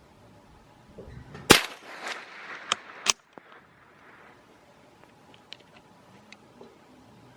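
A .22LR Anschutz 1761 rifle fires a loud shot about a second and a half in, followed within the next second and a half by a few sharper, smaller cracks. The last of these is nearly as loud as the shot.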